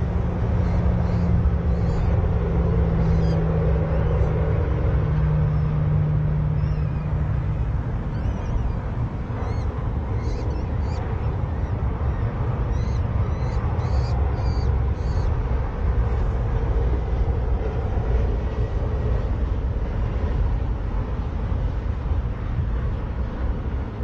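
A steady, loud low rumble, with a low hum through roughly the first third. Short, high bird chirps are scattered over it, thickest in the middle.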